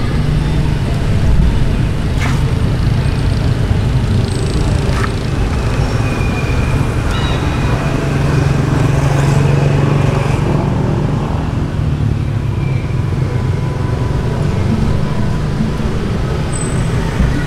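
Steady low rumble of motor traffic, with an engine hum swelling about eight to ten seconds in.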